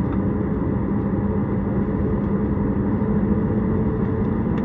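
Steady cabin drone inside a Boeing 737 MAX 8 taxiing after landing, its CFM LEAP-1B engines at idle, with a steady low hum.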